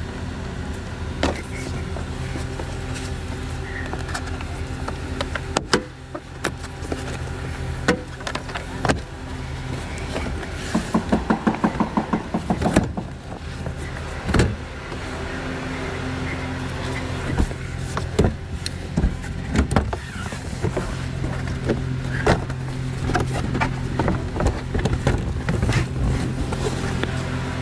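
Plastic interior trim and headliner being handled inside a car: scattered clicks and knocks over a steady low hum. A quick run of rapid clicks comes about eleven seconds in.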